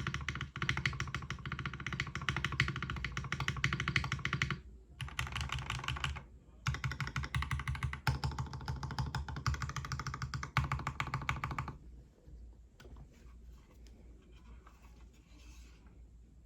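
Fast typing on a mechanical keyboard with retooled Cherry MX Black linear switches in an aluminum full plate, under GMK keycaps. The typing breaks briefly about four and a half and six seconds in, then stops about twelve seconds in, leaving only faint scattered sounds.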